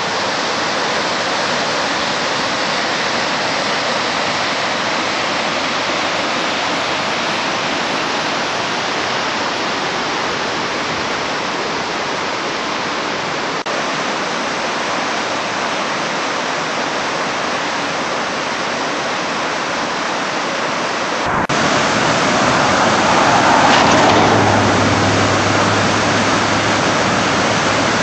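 Muddy flash-flood water rushing down a swollen creek in a steady, continuous rush. About three-quarters of the way in the rush becomes louder and fuller, and a low steady hum joins it near the end.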